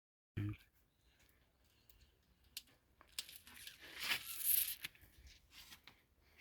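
Hands tearing a chicken apart, a short knock at the start, then scattered clicks and a longer ripping, crinkling stretch loudest about four to five seconds in.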